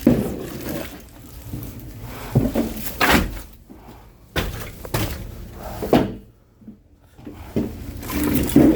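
Split oak firewood logs being set down one at a time, giving a series of hard wooden thunks and knocks spaced a second or so apart.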